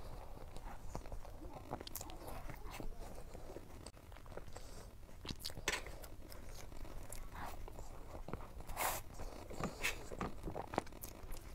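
Close-miked eating sounds of soft cream cake: wet mouth and lip smacks and soft chewing, with scattered small clicks.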